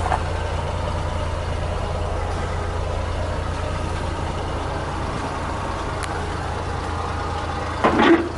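Suzuki Carry kei truck's engine idling with a steady low hum, with a short clatter of handling near the end.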